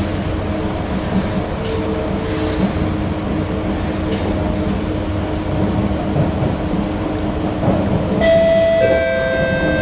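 Cabin noise of a Kawasaki C151B metro train running into a station: a steady rumble with a faint motor hum. About eight seconds in, a two-note electronic chime sounds, high then low.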